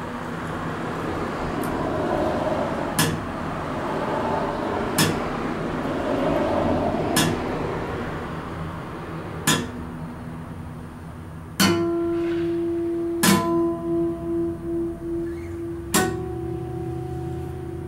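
Acoustic guitar played slowly, a single chord struck about every two seconds and left to ring.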